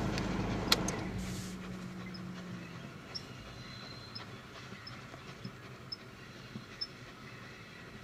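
Double-headed steam train of two small steam locomotives and coaches rolling past and away, its low rumble fading over the first three seconds. A sharp click just under a second in, then a few faint high ticks as it recedes.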